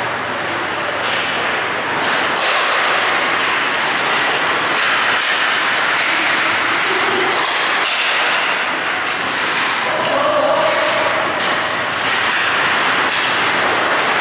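Ice hockey play: a steady rush of skates on ice, with scattered sharp scrapes and knocks from sticks, puck and boards.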